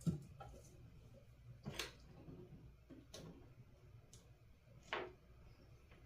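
Scattered light clicks and taps, irregularly about a second apart, from small plastic and metal kit parts being handled and fitted on a circuit board, over a faint low hum.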